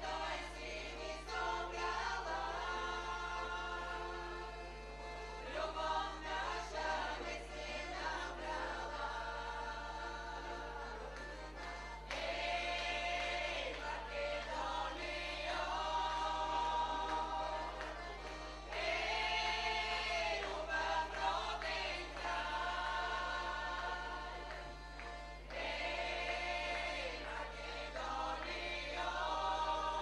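Women's folk choir singing in unison at microphones to accordion accompaniment, in phrases of held notes with short breaks between them.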